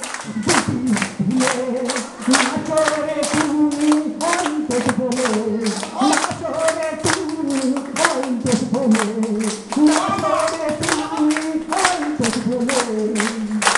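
A man singing a song through a microphone and PA, with a roomful of people clapping along to a steady beat.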